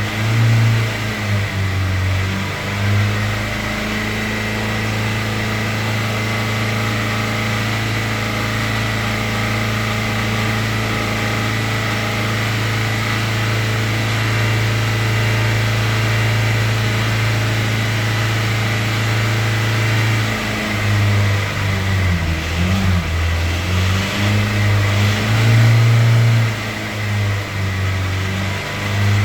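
Hyundai Sonata engine held at high revs, around 3000 rpm, running steadily, then its revs dipping and rising again over the last several seconds. The sustained high-rev run is a no-liquids attempt to cure an engine ticking noise that is worst at idle.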